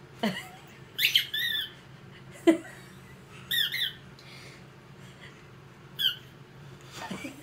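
A squeaky rubber giraffe toy squeezed three times, each squeeze giving a high squeak, with a baby's short excited squeals between them.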